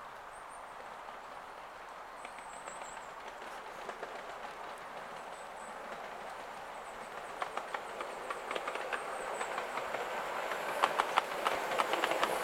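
Miniature steam locomotive 5806 in GWR livery approaching and running past close by with its passenger cars, its wheels clicking over the rail joints. The running noise grows louder throughout, and the clicks come thicker and loudest near the end as it passes.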